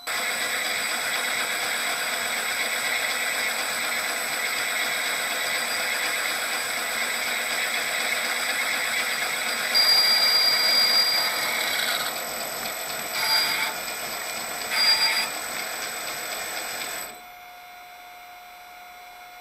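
A metal lathe running under power while turning a worn shaper part round again, heard muffled through the camera's protective housing. It grows louder about ten seconds in, surges briefly twice, then cuts off abruptly near the end, leaving a faint steady hum.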